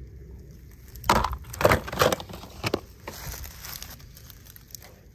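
Handling noise from a plastic toy truck being moved by hand, with the grass and leaves around it. About a second in comes a quick run of sharp knocks and rustles, which dies down after about three seconds.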